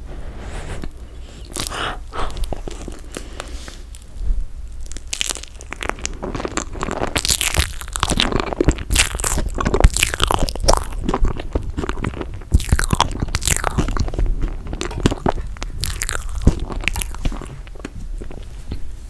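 Close-miked eating of toasted marshmallow: a dense run of irregular sticky chewing, smacking and crackling mouth sounds, busiest from about a quarter of the way in to near the end.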